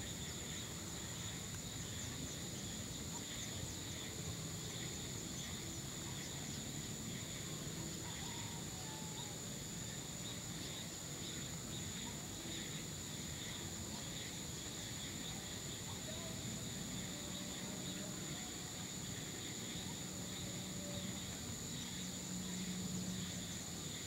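Evening insect chorus: a steady high-pitched trill with a flickering chirring below it, over a low background hum.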